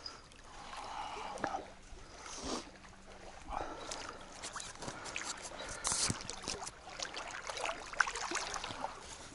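Scattered light clicks, knocks and rustles from fishing tackle being handled aboard a boat while the line is made ready to cast again.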